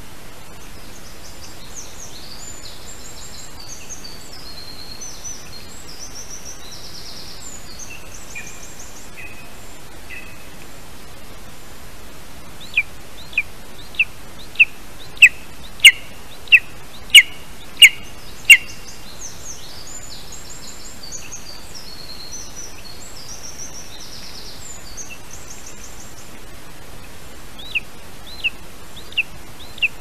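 Lesser spotted eagle calling: a run of about ten sharp calls, evenly spaced about two-thirds of a second apart and growing louder, then four fainter ones near the end. Small songbirds sing faintly behind, over a steady hiss from the nest microphone.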